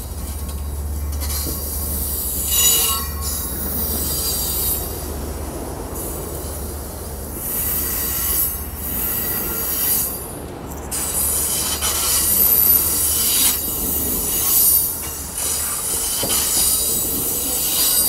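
Amtrak California passenger cars of a San Joaquin train rolling past, with high-pitched wheel-on-rail noise over a low steady rumble. The noise swells and fades every few seconds as the cars go by.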